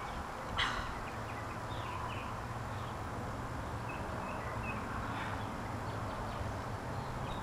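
Outdoor ambience: a steady low background hum with faint, scattered bird chirps. A single short sharp sound comes about half a second in.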